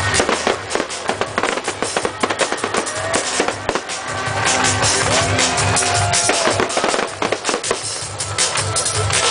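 Fireworks going off in rapid bangs and crackles, over loud music with a steady drum beat.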